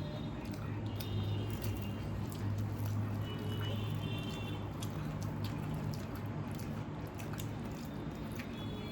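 Close-miked eating: chewing of water-soaked rice and curry, with wet mouth clicks scattered throughout over a steady low hum.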